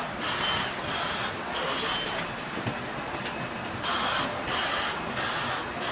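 Assembly-line machinery noise: a run of short hissing bursts, about one every half second to second, some carrying a faint high whine.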